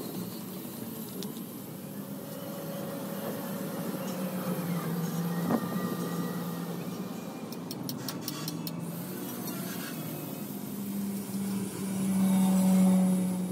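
An engine running with a steady low hum, growing louder near the end.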